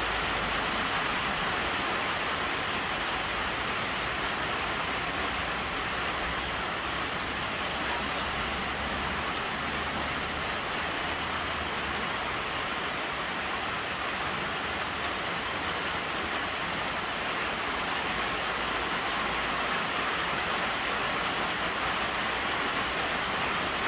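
Rain falling steadily, a constant even hiss that does not change.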